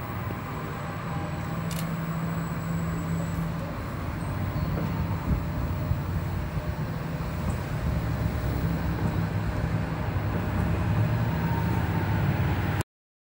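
Düwag MGT6D low-floor tram running past on its track, a steady low rumble that grows louder as it comes close. The sound cuts off abruptly near the end.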